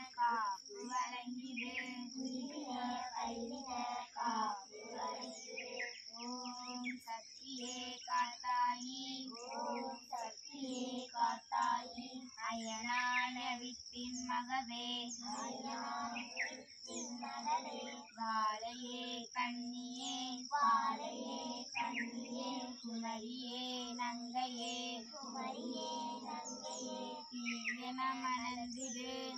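A child's voice chanting a Shiva mantra in a sing-song melody, phrase after phrase, over a steady low hum, with short high chirps in the background.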